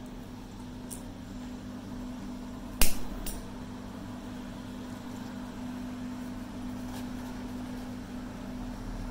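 Steady low hum with a few faint clicks, and one sharp knock about three seconds in, followed by a lighter one.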